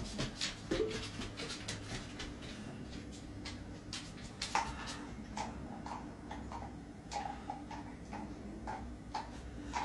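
A Samoyed's claws clicking and tapping on the floor in quick, irregular steps as it prances about, with a few short squeaks between them from about halfway through.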